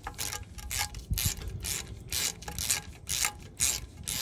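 A hand socket ratchet on a long extension clicking in quick, even strokes, about three a second, as an oil pan bolt is backed out.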